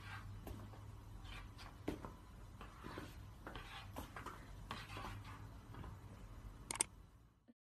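Faint, irregular rubbing and squeaking strokes on window glass, about three a second, over a low steady hum, with two sharper clicks near the end.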